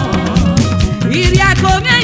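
Yoruba gospel song: band music with a steady drum beat and a sung melody.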